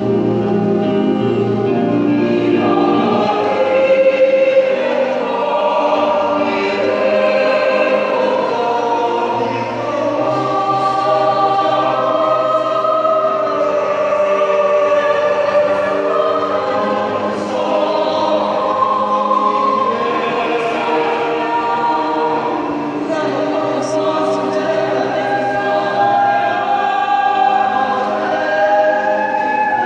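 Mixed choir singing in several parts, with long held chords that shift slowly, in a stone church.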